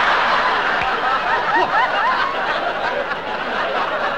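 Studio audience laughing, many voices together, the laughter gradually dying down.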